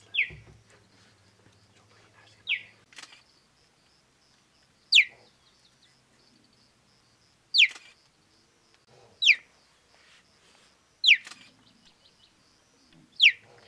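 Young cheetah chirruping, the bird-like cheep it uses to call for its mother: seven short calls, each falling in pitch, about every two seconds.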